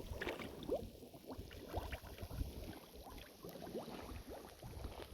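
Mud volcano vent bubbling: natural gas bursting up through wet clay mud in quick, irregular plops and gurgles, many with a short rising pitch.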